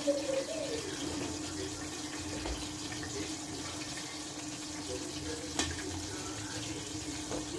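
Pork chops sizzling in hot oil in a frying pan: a steady hiss, with one sharp click a little over halfway through.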